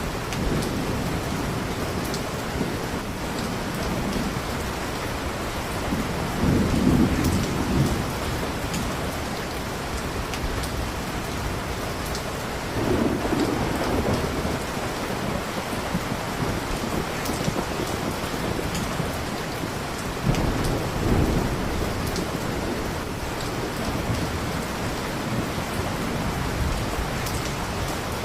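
Steady heavy rain, with low rumbles of thunder swelling up three times, each lasting a second or two.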